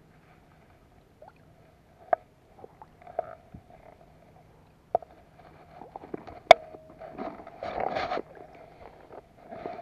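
A few sharp knocks and clicks, then water splashing and sloshing close by from about seven seconds in, as a caught bass is let back into the water.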